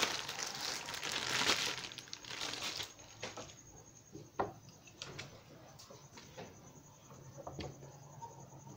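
Clear plastic bag crinkling as a tripod is pulled out of it, then a few light clicks and knocks as the Yunteng VCT-668 tripod is handled and its legs are spread.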